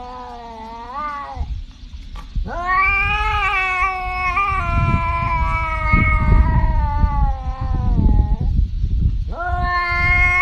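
Tabby cat yowling in long, drawn-out calls that bend up and down in pitch: a short one, then one lasting about six seconds, then another starting near the end.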